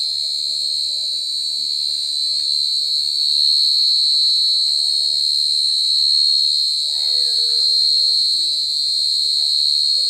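Gangsir cricket (Brachytrupes portentosus, the large burrowing cricket) singing super loud: one continuous, very high-pitched trill held at a steady pitch without a break.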